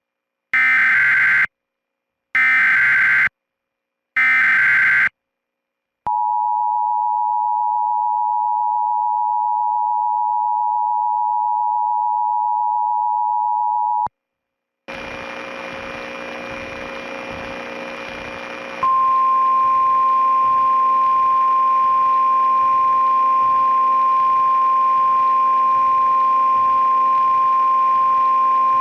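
Emergency Alert System alert opening: three short bursts of screeching SAME digital header data, then the two-tone EAS attention signal held for about eight seconds. After a brief gap a hissing, humming background comes in, and a few seconds later the single steady weather-radio alarm tone starts and holds for about ten seconds, cutting off near the end.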